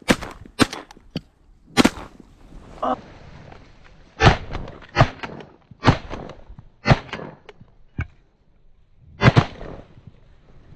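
Shotguns firing at ducks: four blasts in quick succession in the first two seconds, then about six more single shots spaced roughly a second apart, each with a short ringing tail.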